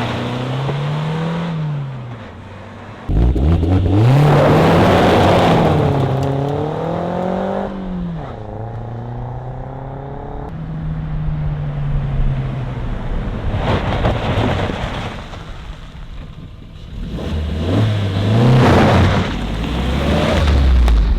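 Suzuki Jimny JB74's 1.5-litre four-cylinder petrol engine, breathing through a Forge Motorsport cat-back exhaust, accelerating in several runs. The exhaust note climbs and then drops back at each gear change.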